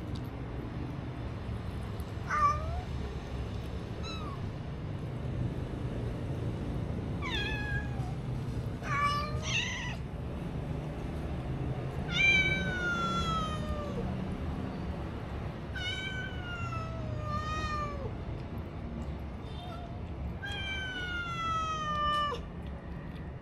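Kittens meowing, about nine calls in all, several of them long and drawn out with a falling pitch. A steady low hum runs underneath.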